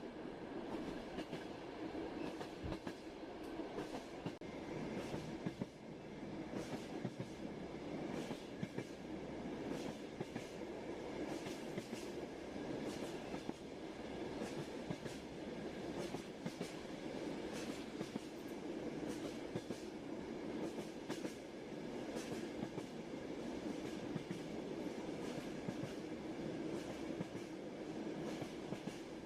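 A moving train's steady running rumble, with frequent sharp clicks and knocks from the wheels clattering on the track.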